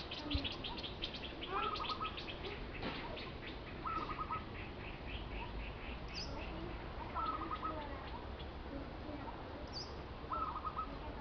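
Birds chirping: a short call of a few quick notes repeats about every three seconds, over a fast run of high chirps that fades out about halfway through, with a couple of single thin high chirps later.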